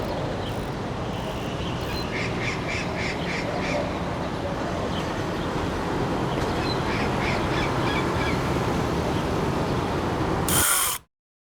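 Birds calling in two quick runs of short repeated notes over a steady rushing background. Near the end a brief loud rush of noise comes before the sound cuts out completely.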